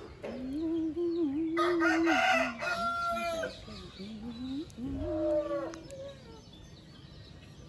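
Rooster crowing: one long drawn-out crow, then a shorter crow about five seconds in.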